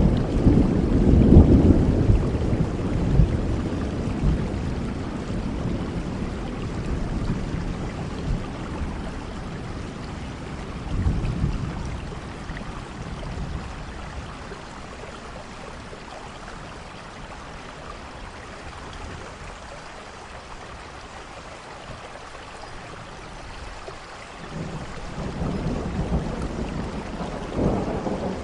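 Steady rain falling, with rolling thunder. A low rumble fades over the first few seconds, a short roll comes about a third of the way in, and another rumble builds near the end.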